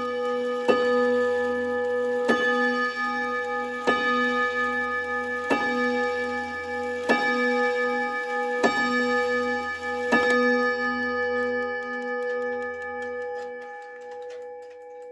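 French Odo wall clock striking the hour on its chime rod: a hammer hits the rod seven times, about one stroke every second and a half, each blow ringing on with a wavering tone. After the last stroke the ring slowly fades away.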